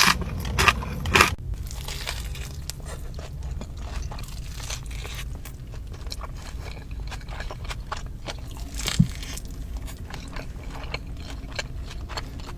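Close-miked crunching bites into crispy fried chicken (Nashville hot chicken crispers), a few loud crunches at first. It settles into steady chewing with small crackles, and one more sharp crunch near the end.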